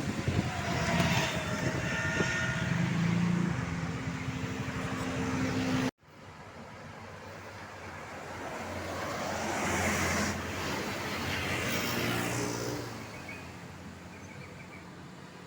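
Roadside traffic: vehicles passing close by. It breaks off abruptly about six seconds in, then another vehicle approaches, passes loudest around the middle, and fades away.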